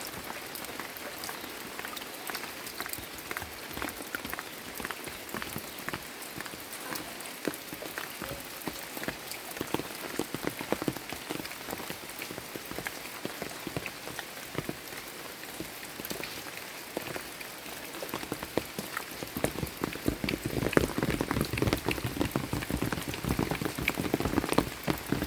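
Rain falling steadily, a dense patter of many drops striking surfaces. About twenty seconds in, the drop impacts grow louder and deeper.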